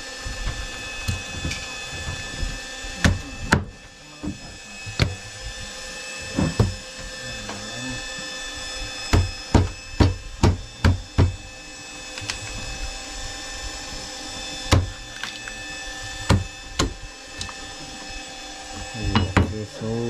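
A meat cleaver chopping through fish on a cutting board: a series of irregular hard knocks, with a quick run of chops around the middle. A steady mechanical hum runs underneath.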